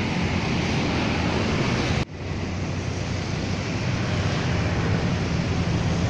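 Steady, loud roadside noise: traffic rumble mixed with wind on the microphone. There is a sudden dip about two seconds in, where the recording cuts, and then the noise carries on.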